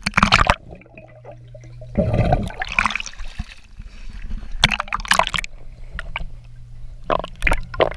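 Pool water splashing and sloshing around a waterproof action camera as it moves at and below the surface, in four loud bursts, with a low steady hum between them.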